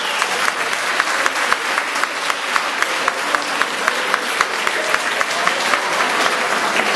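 Audience applauding, with sharper claps in a fairly steady beat running through it.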